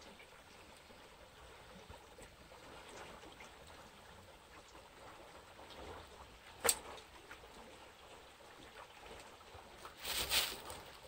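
Canal water flowing over stones, a faint steady rush. A single sharp click comes about two-thirds of the way in, and a short, louder burst of noise comes near the end.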